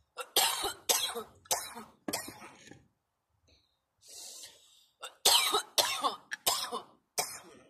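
A woman coughing hard from bong smoke: a fit of about four coughs, a deep breath, then a second fit of about four coughs.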